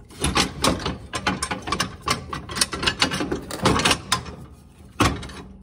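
Steel steering bracket with its sector gear and drag links rattling and clanking against the mower frame as it is wiggled up into place: a fast, irregular run of metal clicks and knocks, easing off near the end, with one hard knock about five seconds in.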